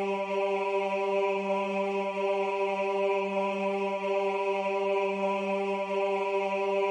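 Computer-generated choir voice playing the bass part from notation software, holding the piece's final note under a fermata as one steady, unbroken low tone.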